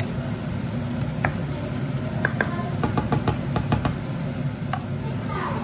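Black plastic spatula stirring chopped onions frying in a nonstick wok, with a quick run of sharp clicks as the spatula knocks and scrapes against the pan in the middle. A steady low hum and a faint sizzle run underneath.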